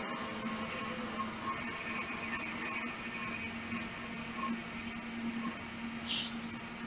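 Shop compressed air filling a heavy-truck air brake system's reservoirs as pressure climbs toward governor cutout: a steady low hum under a faint hiss, with a short high hiss near the end.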